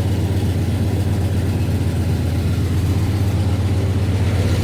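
Dodge Magnum 5.9 L (360) V8 idling steadily, with the noise of an exhaust leak from an opening that could not be plugged; otherwise the engine sounds healthy.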